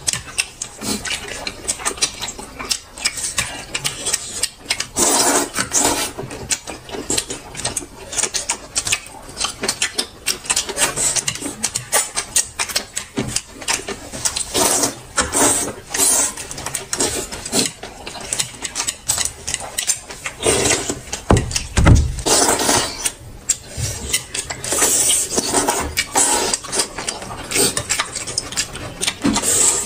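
A person eating hurriedly: a dense, irregular run of chewing and smacking sounds, with clinks of tableware.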